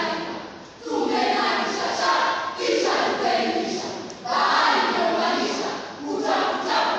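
A high school choral verse group reciting in unison, many voices chanting together in phrases of about a second and a half with short breaks between.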